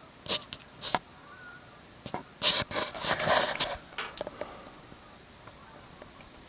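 A few sharp clicks and knocks, with a burst of rustling and scraping about two and a half seconds in that lasts just over a second.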